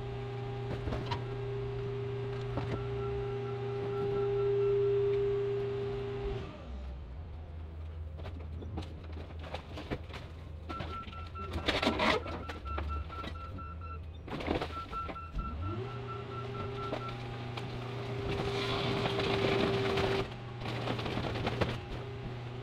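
Car crusher's diesel-driven hydraulics running steadily under load, dropping to a lower idle about six seconds in, then loading up again near the end as the press lid comes down on the cars with a short stretch of crunching, scraping metal. While the hydraulics idle, a wheel loader sets a car onto the stack with several sharp metal clanks, and a backup alarm beeps steadily.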